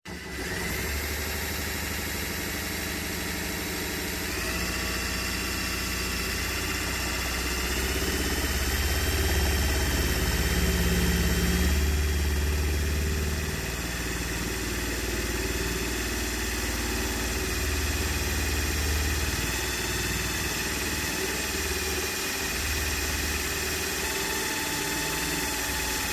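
A motor running steadily: a continuous low rumble with a faint whine above it that steps up in pitch a few seconds in and drifts slowly.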